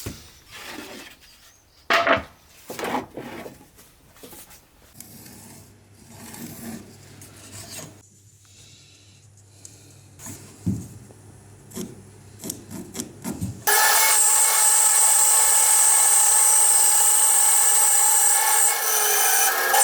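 Wood being worked by hand with scattered rubbing, scraping and rasping strokes. About 14 seconds in, a power tool starts abruptly and runs steadily and loudly on the wood.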